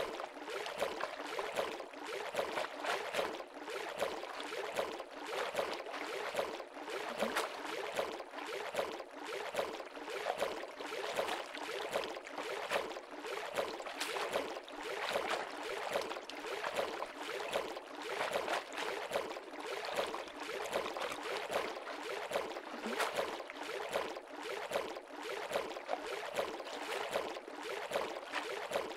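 Water-splash sound effects: a steady, dense run of small splashes and trickling water, with little deep sound beneath.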